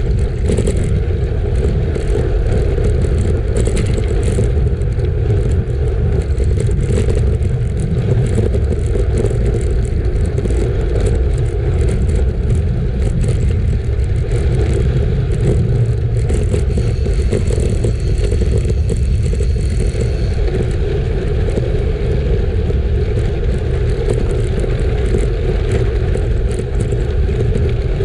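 Steady rush of wind on the microphone and a road bike's tyres rolling over gravel, with scattered clicks and rattles from the bike.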